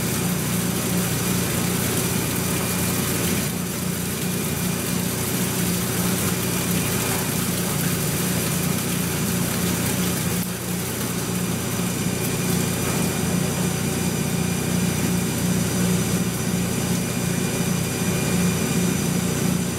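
A large Monarch Series 90 engine lathe running steadily with a continuous machine hum, its coolant pump sending a flood of coolant down onto the carriage.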